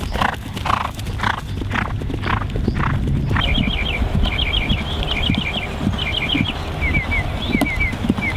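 A horse galloping on turf: hoofbeats, with the horse breathing hard in time with its stride about twice a second for the first three seconds. After that a bird sings quick runs of three or four short high chirps over the hoofbeats.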